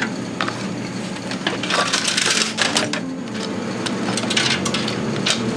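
Scattered clicks, knocks and scraping rattles of plastic and metal PC parts being handled, as case fans are worked out from beside a lifted AIO radiator.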